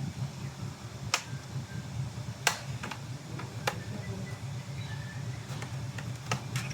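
About five sharp, separate clicks and taps from handling a laptop's tools and parts while it is being taken apart, over a steady low hum.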